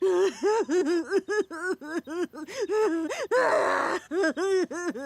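A cartoon character's high-pitched nonsense vocalizing: a rapid string of short, bending syllables with a breathy, rasping stretch a little past the middle.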